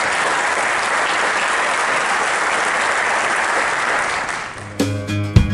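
Audience applauding steadily, dying away after about four and a half seconds. Music starts near the end.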